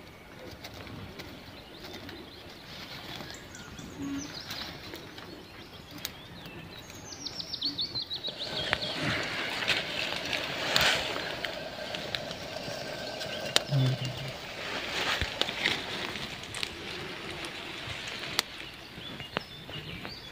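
A bird sings a high, quick descending trill. Then, from about eight seconds in, a small wood fire crackles, with frequent sharp pops.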